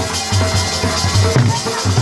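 Wedding music with a steady, heavy drum beat and a melody over it.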